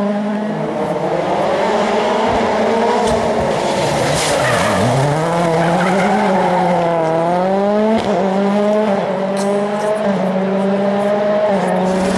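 World Rally Car's turbocharged 1.6-litre four-cylinder engine at high revs. About four to five seconds in, the revs drop sharply as it brakes for a corner, then climb back as it accelerates away, with tyres squealing. It then holds steady high revs.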